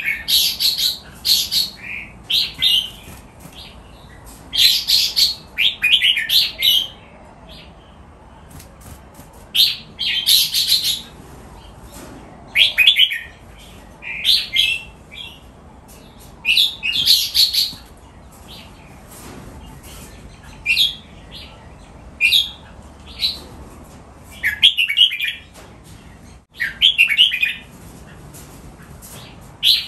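Red-whiskered bulbul singing: short, bright whistled phrases of about a second each, repeated with pauses of one to three seconds between them.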